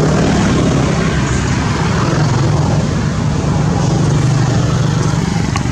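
A steady low engine drone over an even rushing noise, holding constant throughout, with a single faint click near the end.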